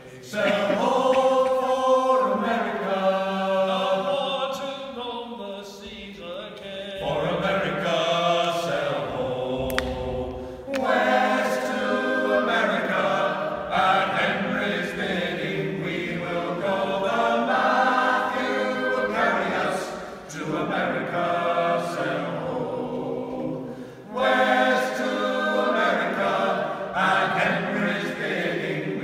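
A small mixed group of mostly male voices singing an unaccompanied folk song in harmony, in sung phrases with short breaks between lines.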